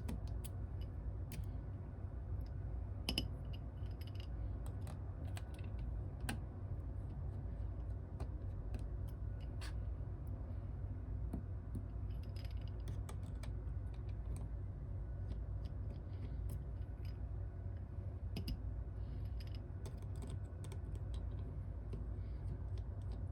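Irregular light clicks and taps, scattered across the whole stretch, over a steady low hum.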